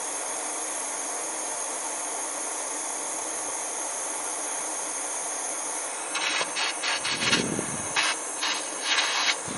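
Small handheld gas torch burning with a steady hiss while heating a brass tube for silver soldering. From about six seconds in, irregular crackling pops join the hiss.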